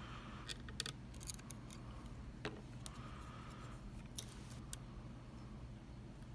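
Faint metallic clicks and soft scraping of a flag-style pick working the pins of a Mul-T-Lock MT5 dimple lock under tension, with several sharp clicks scattered through, over a steady low hum.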